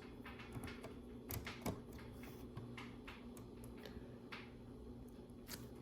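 Small plastic LEGO pieces clicking and tapping as they are handled and placed: a scatter of faint, short clicks, a few louder ones about one and a half seconds in.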